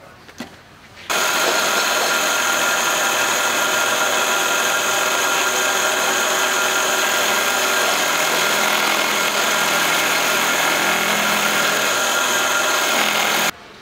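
Milling machine cutting a hole through the aluminium skin of an aircraft floor panel: a loud, steady, high whine of many tones that starts suddenly about a second in and stops abruptly near the end.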